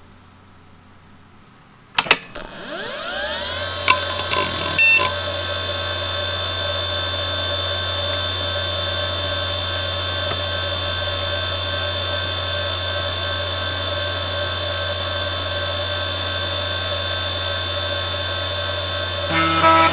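A Fujitsu MPB3021AT 3.5-inch 5400 rpm IDE hard drive powering up. After a quiet couple of seconds there is a sharp click, then a rising whine as the spindle spins up and a few head clicks as it settles. It then runs with a steady spindle hum and a high whine. Near the end comes a short burst of head-seek chatter.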